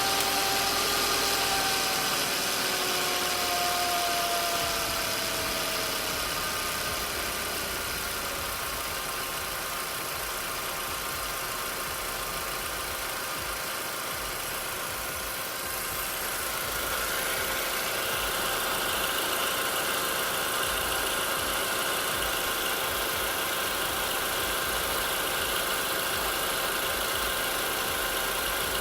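VW Passat B5+ 1.8T (AWM) turbo petrol engine running at raised warm-up revs, with a knocking in the turbocharger area. The whine falls in pitch over the first few seconds as the revs settle; about halfway through, higher-pitched tones come in and the sound gets a little louder.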